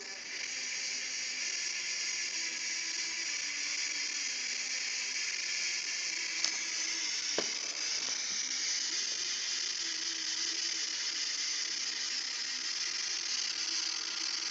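A steady high hiss with faint wavering low tones beneath it, broken by two short sharp clicks about six and a half and seven and a half seconds in.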